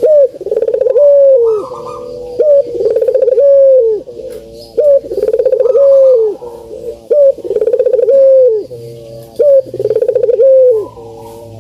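Puter (Barbary/ringneck dove) cooing over and over, each call a short rising note followed by a drawn-out coo that drops at the end, about every two and a half seconds.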